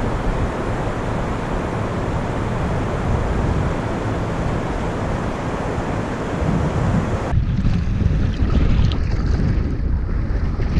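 Strong gusting wind buffeting the microphone, a loud steady rush that changes about seven seconds in to a heavier low rumble.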